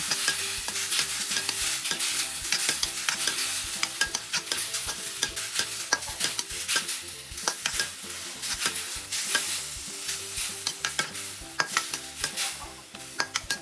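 Metal spatula scraping and clinking against a steel wok while fern shoots and prawns stir-fry in sizzling oil and sauce, with many quick, uneven strokes over a steady sizzle.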